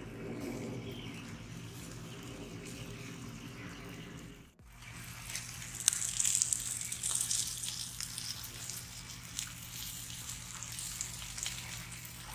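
Whole chickens roasting on a spit over a charcoal fire, fat and juices sizzling on the hot coals. After a sudden break about four seconds in, the sizzle turns into a louder hiss with scattered small crackles.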